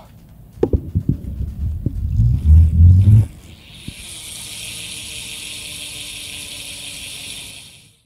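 Rear-wheel freehub of a Pinarello Dogma F road bike. First come handling knocks and a low rumble as the lifted wheel is spun up by hand. Then, from about four seconds in, the freehub buzzes steadily as the wheel coasts, fading out just before the end.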